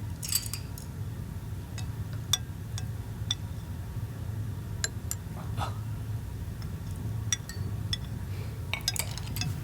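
Light, irregular clinks of dishes and tableware, a dozen or so small knocks, over a low steady hum.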